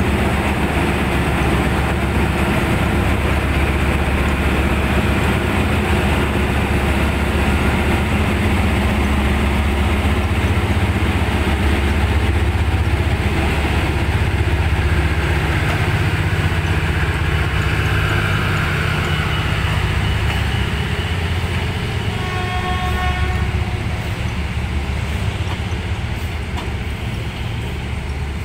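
Diesel-electric locomotive (SRT Hitachi No. 4505) running under load with a steady low drone as it hauls a rake of passenger coaches slowly past. About three quarters of the way in, a train horn gives a short blast.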